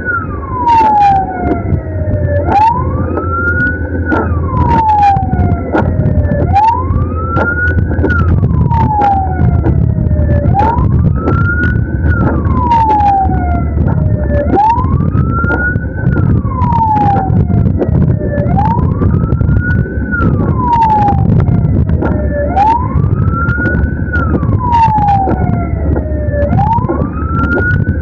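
Ambulance siren in a slow wail, rising for about a second and a half and falling away, repeating about every four seconds, over steady engine and road noise with scattered sharp clicks.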